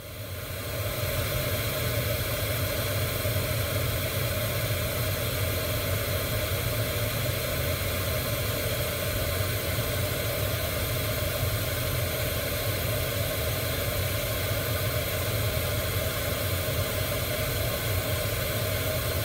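Steady hiss of pink test noise played through a car audio system for a real-time-analyser frequency-response measurement, with the factory dash grilles in place over the 2-inch drivers. It fades in over about the first second, then holds level.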